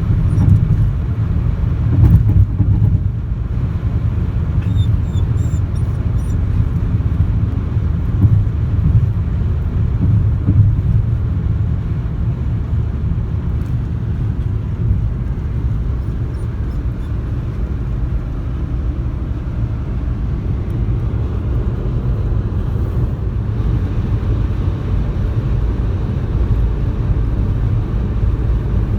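Toyota car driving at steady speed: a constant low rumble of road and engine noise.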